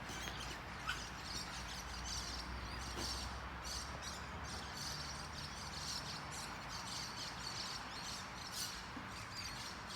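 Outdoor ambience: a steady low background noise with faint, repeated high bird chirps.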